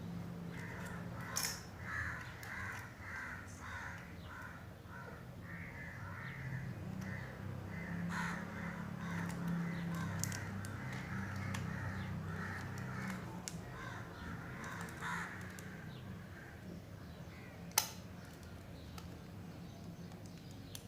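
An animal's harsh repeated calls, two or three a second for about fifteen seconds, over a low steady hum, with a sharp click near the end.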